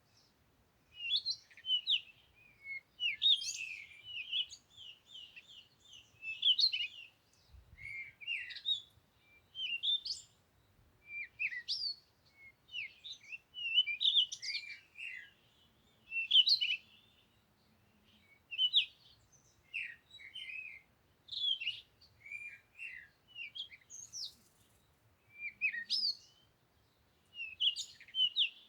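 Songbirds chirping and singing in short phrases of quick, sliding high notes, repeated every second or two with brief pauses between.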